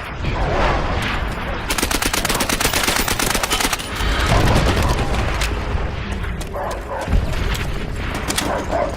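Dubbed-in WWII battle sound effects: bursts of rapid machine-gun fire and scattered rifle shots over a rumbling battle din, with the densest burst from about two to four seconds in.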